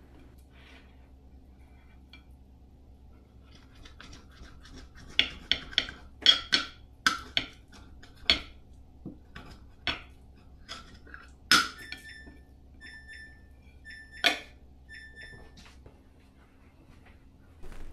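Kitchen knife cutting through a raw salmon fillet on a ceramic plate, the blade clicking and knocking against the plate in a run of sharp taps. A few short high squeaks come near the end.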